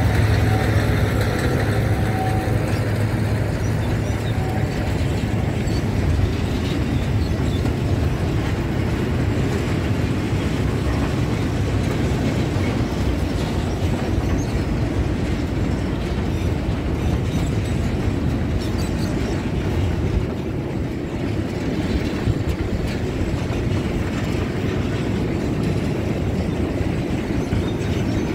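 Diesel locomotive of a narrow-gauge sugar-cane railway hauling a train of wagons, with a steady rumble of engine and wheels on the track throughout.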